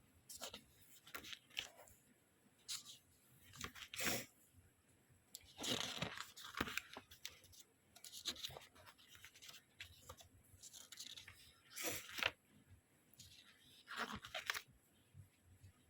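Packaging being handled by hand, torn and crinkled in irregular short bursts with quiet pauses between them.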